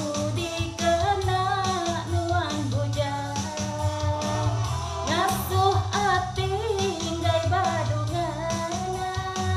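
A woman singing a pop-style song through a handheld microphone over a karaoke backing track with guitar and a steady beat.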